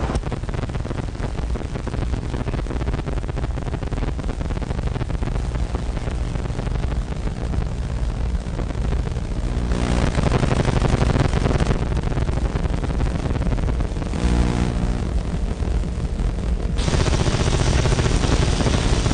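Abstract sound-design soundtrack of an experimental film: a dense, loud, low rumbling noise. It changes character abruptly a few times, turning brighter and fuller about ten seconds in and again near the end.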